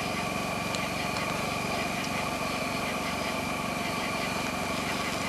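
Steady hum of a small engine running at idle, with a couple of faint crackles from the wood fire.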